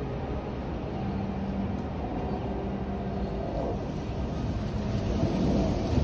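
Wind gusting and buffeting the microphone with a low rumble, swelling to a stronger gust about five seconds in.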